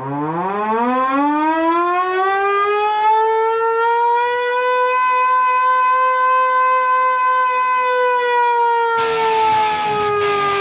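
Civil-defense siren winding up from a low growl to a steady high wail, holding its pitch, then starting to wind down near the end as music with a beat comes in.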